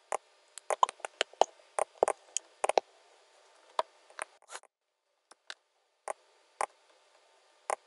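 Computer mouse button clicks at an irregular pace: a quick run of about a dozen in the first three seconds, then single clicks every half second to a second.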